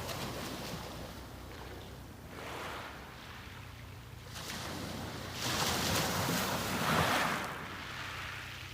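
Sea waves breaking and washing up on a beach. The surf is quieter in the first half and swells louder for a couple of seconds past the middle.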